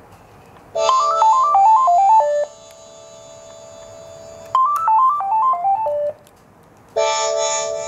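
Gigaset cordless handsets ringing with their paging tone, set off from the base's find-handset button: a quick run of falling electronic notes, played again about four seconds in, then a fuller held chord near the end.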